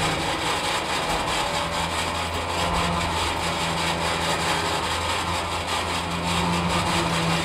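2020 Hino 195 truck's diesel engine running steadily while it drives the Switch-N-Go hoist and winch, lowering the roll-off dumpster body to the ground.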